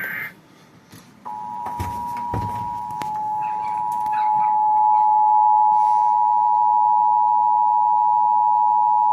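Emergency Alert System attention signal: a steady two-tone sound starting about a second in and holding to the end, growing louder a few seconds in. The last of the screechy data-burst header cuts off right at the start, and there are a couple of faint knocks about two seconds in.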